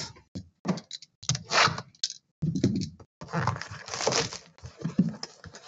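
Plastic shrink wrap being picked at, torn and crinkled off a sealed trading card hobby box: irregular crackling and rustling in short bursts with brief pauses.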